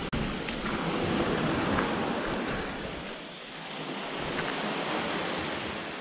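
Steady rush of sea surf and wind, easing off briefly about halfway through.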